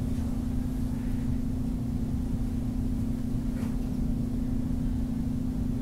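Steady electrical hum with a low rumble beneath it: the background noise of the narration microphone.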